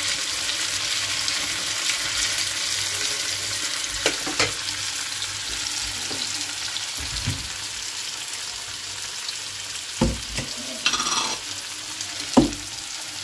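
Diced tomatoes and charleston peppers frying in a pan, a steady sizzle that slowly gets quieter. A few light knocks come through it, around the middle and near the end.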